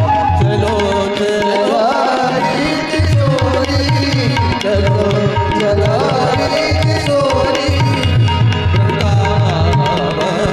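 Indian devotional music with a tabla playing a steady, fast rhythm of low bass strokes under a sliding melody line.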